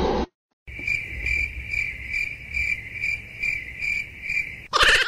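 Cricket chirping, laid in as a comic sound effect: a steady high trill pulsing about twice a second, starting just under a second in after a brief silence and cutting off sharply near the end.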